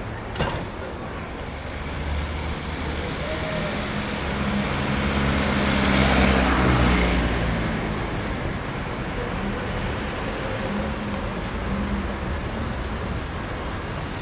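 City street traffic, with a motor vehicle passing close: it builds to its loudest about six seconds in, then fades back into the steady traffic. A sharp click sounds about half a second in.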